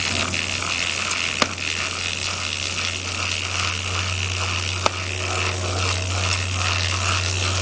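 Bicycle chain being scrubbed through a degreaser-filled chain-cleaning tool as the cranks turn, with the hub's ratchet pawls clicking in a regular rhythm about three times a second over a steady low hum. Two sharp clicks stand out, about a second and a half in and near five seconds.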